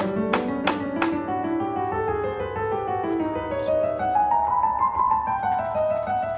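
Background music with a piano melody that rises and falls. A tapping beat, about three strokes a second, stops about a second in.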